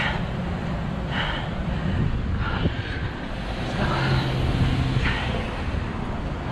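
Wind rumbling on the microphone of a camera carried on an outdoor run, over a steady background of traffic. A soft swishing pulse repeats about every second and a quarter, and a low steady hum rises in the middle for about a second.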